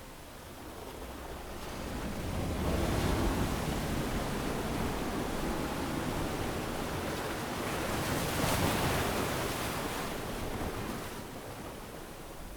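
Ocean waves breaking and washing up a sandy beach, swelling about two seconds in and again later before easing off.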